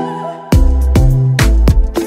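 Background music: soft pitched notes, then about half a second in a heavy bass line and a steady drum beat come in.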